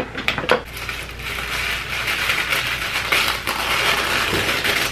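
Bubble-wrap packaging crinkling and rustling as it is pulled open by hand: a few sharp clicks at first, then a dense, steady crackle.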